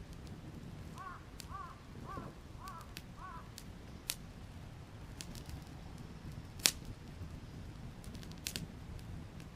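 A bird calling five times in quick succession, with sharp pops and cracks from a crackling wood campfire scattered throughout; one loud crack comes about two thirds of the way in.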